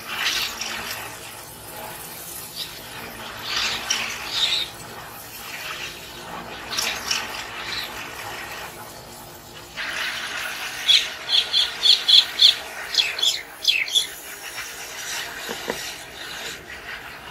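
Tomato paste sizzling in hot oil and spices in a frying pan, stirred with a wooden spatula: the tadka for a dal. About eleven seconds in, a bird chirps quickly about six times.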